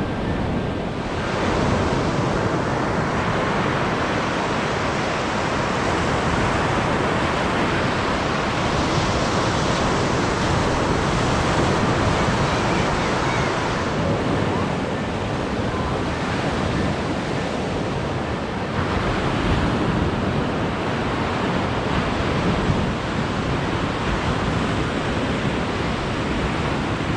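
Lake Michigan waves washing onto the beach in a steady rush, with wind buffeting the microphone.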